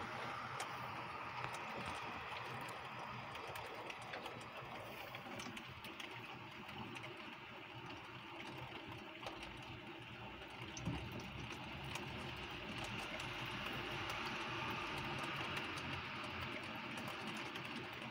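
Heavy rain falling steadily: a constant hiss of rainfall with many small ticks of drops striking close by.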